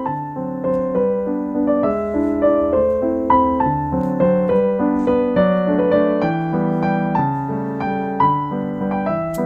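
Solo piano music: single melody notes played one after another over held lower notes.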